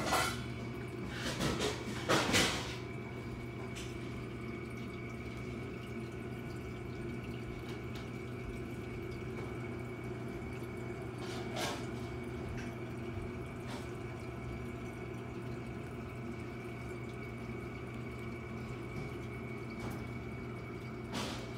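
Reef aquarium running: a steady hum of pumps with trickling, dripping water, and a thin steady high tone. There are a few sharp knocks in the first couple of seconds.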